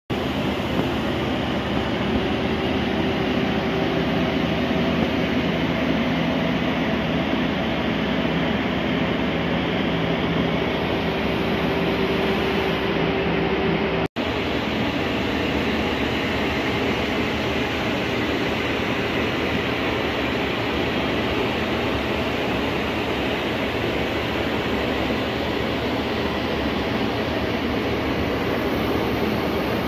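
Steady rushing of a large ventilation fan running in a paint finishing shop, with a steady hum in the first half. The sound breaks off for an instant about halfway through.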